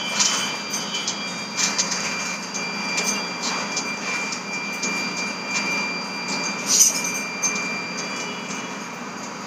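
Gas stove burner hissing steadily while a roti is toasted directly over the flame, with scattered clicks and taps of metal tongs, the sharpest nearly seven seconds in. A thin, steady high tone runs underneath.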